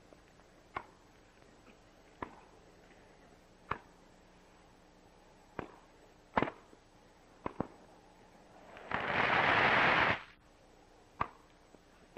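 Sharp knocks of a tennis ball struck by rackets and bouncing on a grass court during a rally, one every second or so, with a quick double knock about seven and a half seconds in. Around nine seconds in, a brief rush of noise lasting about a second is the loudest sound.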